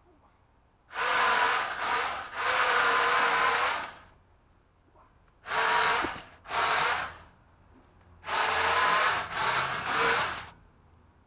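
Pole saw motor run in short bursts: seven bursts of a high whine in three groups, each one spinning up and winding down.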